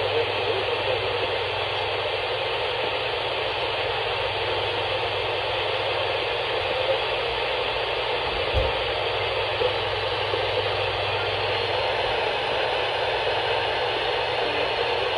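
Radio static: a steady hiss from a weakly received radio signal with no programme audio coming through, over a faint hum, and one brief low thump about eight and a half seconds in.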